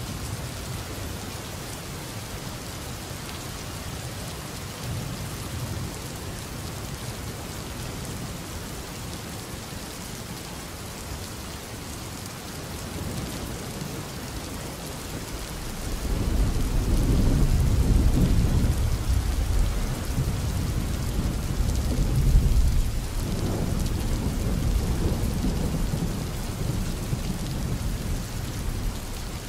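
Steady rain, with a long low rumble of thunder that swells about halfway through and eases off toward the end.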